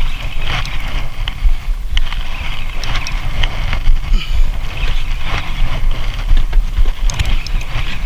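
Wind buffeting the microphone in a heavy, uneven low rumble, with scattered clicks and knocks from handling a spinning reel and jigging rod.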